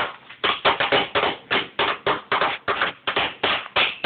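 Wooden drumsticks beating a steady rhythm on a tabletop, about four sharp strikes a second.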